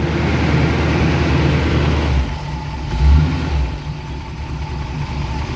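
1971 Chevy C10's 350 small-block V8 running warm at idle. About two seconds in it drops to a lower, quieter idle, and there is a brief surge about a second later; it keeps running on the low idle.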